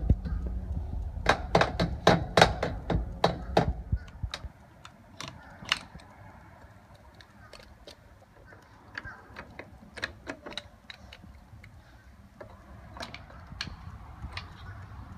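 Plastic toy tools being banged by a child: a quick irregular run of sharp knocks and taps over the first few seconds over a low rumble, then scattered single taps.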